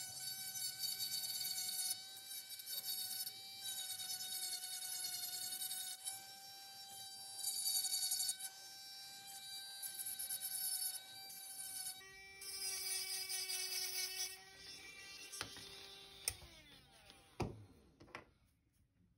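Rotary micromotor handpiece with a file bit running at a steady high-pitched whine, its grinding rising and falling as it roughs up the acrylic shell of an in-the-ear hearing aid. Near the end it runs at a lower pitch, then winds down, falling in pitch, and stops, with a few sharp clicks.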